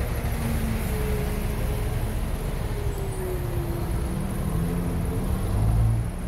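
City street traffic: vehicle engines running and passing, with a louder low rumble swelling near the end.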